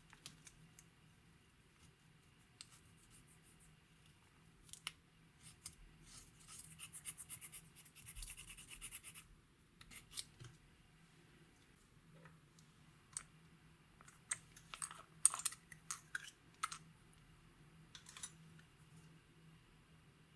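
Slime being worked by hand, giving quiet sticky clicks and crackles: a fast run of ticking a third of the way in, and bunches of sharper crackles later.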